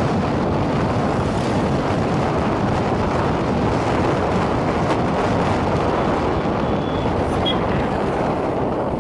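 Steady rush of wind on the microphone of a moving motorbike, with the bike's engine and road noise running beneath it.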